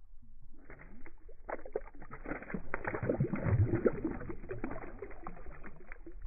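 Water splashing and sloshing irregularly, with many small knocks, starting about half a second in.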